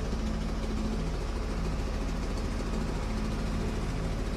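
An engine running steadily at low speed, a low, even drone.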